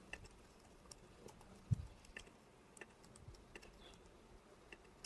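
Faint, irregular clicks of computer keyboard keys, about ten in all, with a soft thump nearly two seconds in.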